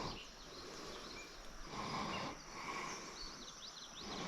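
Faint outdoor ambience: a soft rushing noise that swells and fades every second or two, with scattered short, high bird chirps, more of them near the end.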